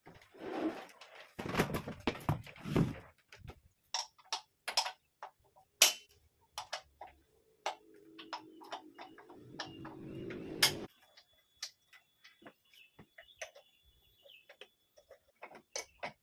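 Scattered metallic clicks and knocks of a wrench working the bolts on a homemade wood lathe's steel bed, with a steady grinding scrape for about three seconds in the middle. Scuffing and handling noise fills the first few seconds.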